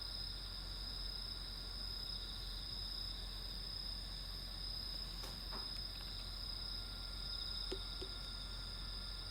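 A chorus of night insects chirring steadily in a continuous high-pitched trill, with a couple of faint short clicks about five and eight seconds in.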